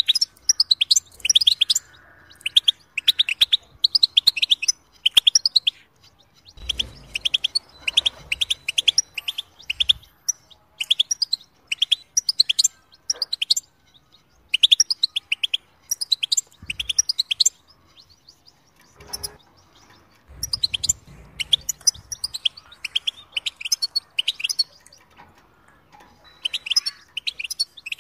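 European goldfinch singing: long phrases of rapid twittering and tinkling chirps, broken by short pauses.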